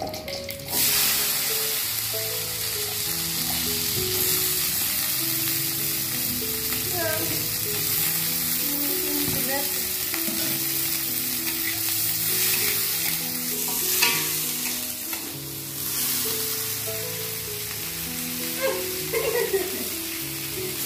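Cut green beans frying in hot oil in a metal wok, sizzling loudly; the sizzle starts suddenly about a second in as they go into the oil. A few sharp knocks and scrapes of a spatula against the pan come later on.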